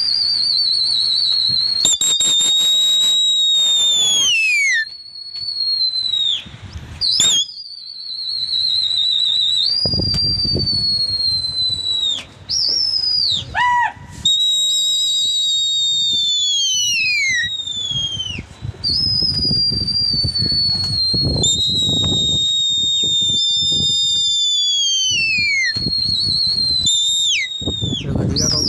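Loud, shrill human whistles, one after another, each held for a couple of seconds and ending in a falling glide, some with a warble. This is a pigeon flyer whistling to keep his flock flying.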